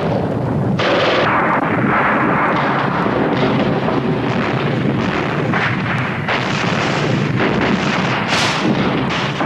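Continuous battle din of gunfire and explosions, loud and dense with no breaks.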